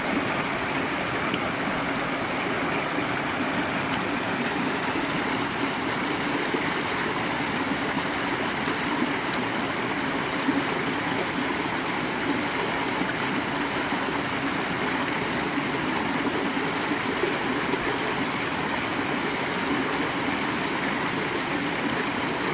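Mountain torrent rushing and splashing over small rock cascades, a steady, even water noise.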